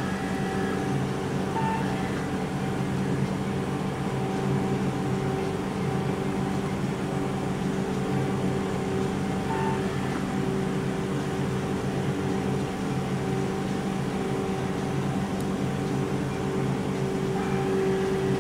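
BKN-S82 commercial soft-serve ice cream machine running with a steady hum from its refrigeration compressors and beater motors while soft ice cream is drawn continuously from the dispensing door.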